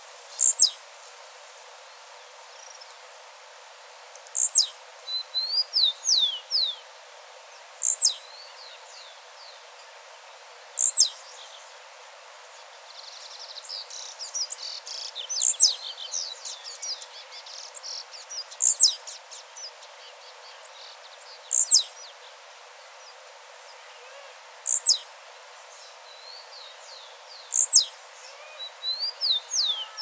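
Male blue-black grassquit singing its short, sharp, high song, a note that falls steeply in pitch, repeated about every three seconds. Fainter bird chirps fill the gaps between songs, busiest around the middle.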